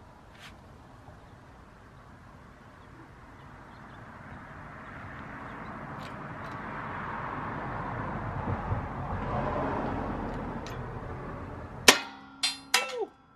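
A 20-ton hydraulic shop press is being pumped down to force jackshaft bearings out with an extension. A low, rough noise builds for several seconds. Near the end there is a sudden loud pop as the load lets go, then two more sharp metal clanks, the last with a brief falling ring.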